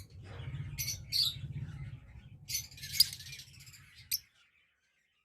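Lovebirds giving short, sharp high chirps, several in a row, over a low steady rumble. All sound stops about four seconds in.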